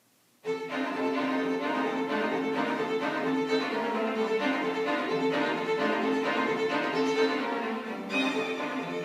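A string quartet of two violins, viola and cello comes in sharply about half a second in, out of near silence, and plays a rhythmic passage of repeated bowed strokes. The texture changes near the end.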